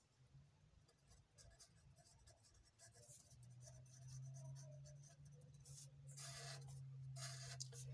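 Faint scratching of a marker pen writing on notebook paper, with two brief, louder strokes near the end, the heading being underlined twice. A low steady hum sits underneath from about three seconds in.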